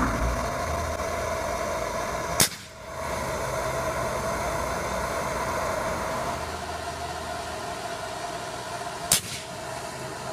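Propane torch flame roaring steadily as it heats a sealed Pyrex test tube of gummy bears. About two and a half seconds in, a single sharp pop as the built-up pressure blows the silicone plug out and the superheated contents flash. A second, similar sharp pop comes near the end.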